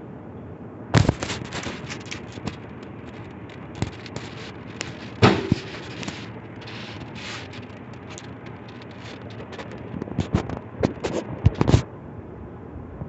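Ceiling fan running with a steady whoosh, broken by clusters of sharp irregular clicks and crackles about a second in, around four to five seconds in, and again from about ten to twelve seconds in.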